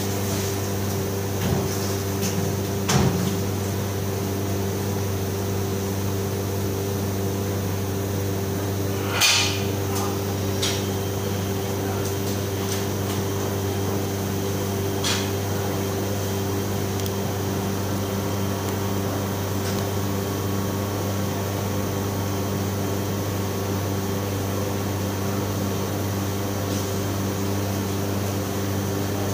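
Steady low machine hum from running kitchen equipment, with a few sharp metal knocks and clanks as stainless steel refrigerators are handled; the loudest knock comes about nine seconds in.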